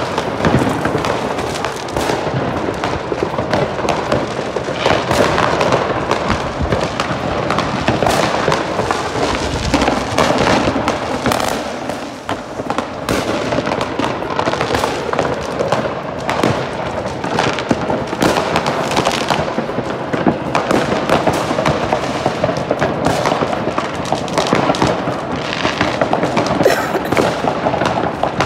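Many fireworks going off at once across a neighbourhood: a dense, unbroken crackle of bangs and pops, easing only briefly about twelve seconds in.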